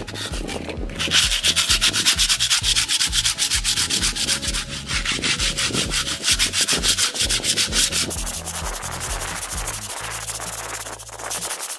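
Sandpaper rubbed by hand in rapid back-and-forth strokes over the rough textured coating of a gate pillar. The scraping strokes start about a second in and turn lighter after about eight seconds.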